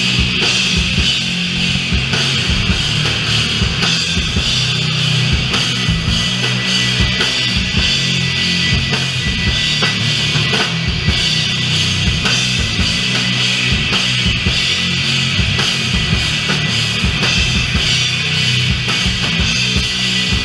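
Doom metal band playing live, loud and steady: a dense wall of distorted instruments over heavy drum-kit hits.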